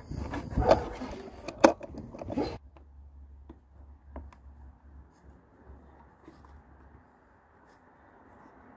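Hard plastic clicks and knocks as a BMW F30 glove box damper is handled and pushed into its mount. The sharpest click comes about a second and a half in; after about two and a half seconds only faint scattered ticks remain.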